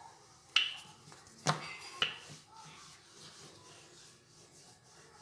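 Wooden rolling pin rolling out a disc of puri dough on a floured board: a soft rubbing, with three sharp knocks of the pin within the first two seconds.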